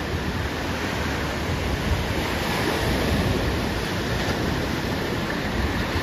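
Steady ocean surf washing on the beach, with wind buffeting the microphone.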